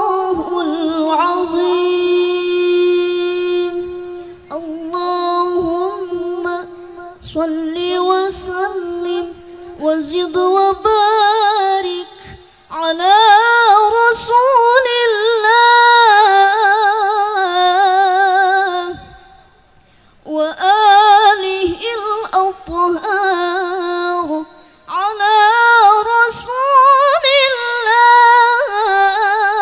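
A young woman reciting the Quran in the melodic tilawah style through a microphone. She holds long, high notes with a wavering ornament, broken by a few short pauses for breath.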